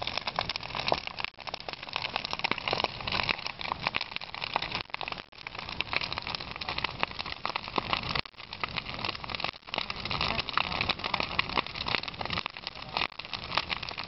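Large wood bonfire burning hard: a dense, uneven crackle and popping of burning timber over the rushing noise of the flames.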